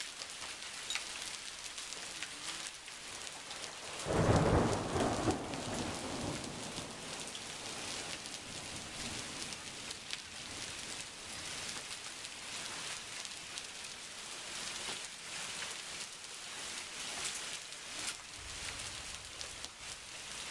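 Thunderstorm downpour of rain mixed with hail: a steady hiss of rain with many sharp ticks of impacts. Thunder rumbles loudly about four seconds in for a couple of seconds, and more faintly near the end.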